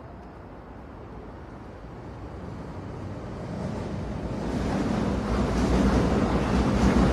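Train running, its rumbling noise growing steadily louder over several seconds as it comes closer.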